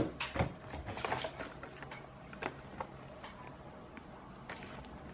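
A blister-packed plastic toy set down on a table with a sharp knock, then a few faint scattered clicks of the plastic packaging as hands handle it.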